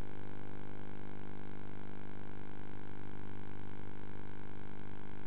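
Helicopter in flight: a steady, even hum of engine and rotor that does not change.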